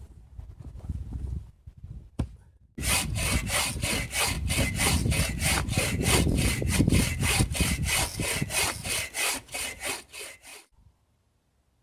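Folding bucksaw cutting through wood with quick, even strokes, about three a second, starting about three seconds in and stopping abruptly near the end. Low rustling and handling noise comes before the sawing.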